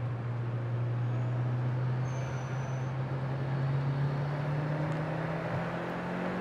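Mitsubishi Lancer Evolution IV's turbocharged four-cylinder engine running at steady revs, heard from inside the cabin under a haze of tyre and road noise from the wet track. The engine note climbs slightly near the end.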